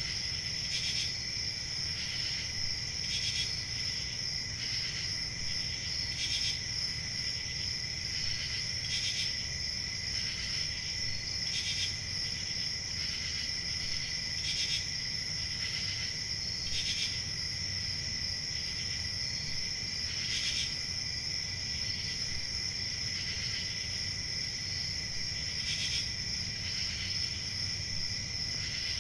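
Crickets chirping: a continuous high-pitched trill with short louder chirps standing out every second or two, over a faint low background rumble.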